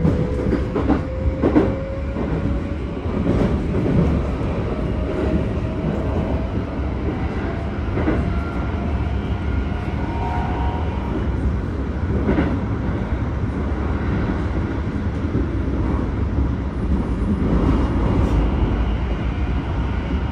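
Keikyu 1000 series train running, heard inside the car. Over a steady wheel-on-rail rumble, the Mitsubishi full-SiC VVVF traction drive gives a whine that rises in pitch over the first few seconds as the train gathers speed. Occasional clicks come from the wheels passing rail joints.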